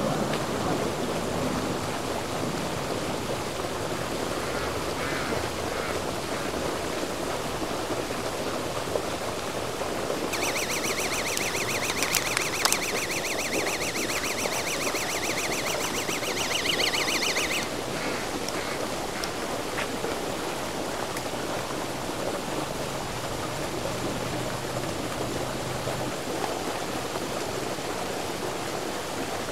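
Steady outdoor noise across a pond at night. About ten seconds in, a high, rapidly pulsing trill starts and runs for roughly seven seconds before stopping.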